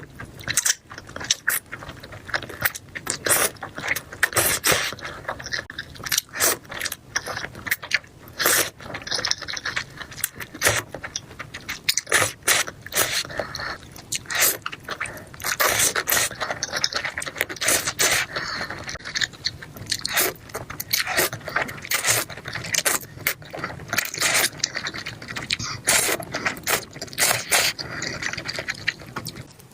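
Close-miked eating of malatang: wet chewing and mouth noises with slurps, a dense, irregular run of sharp clicks broken by a few longer hissy stretches.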